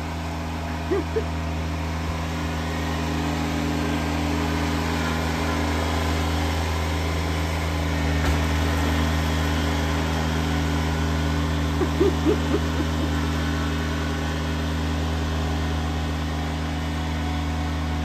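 Kubota BX2380 compact tractor's three-cylinder diesel engine running steadily while driving a front-mounted snowblower through wet snow.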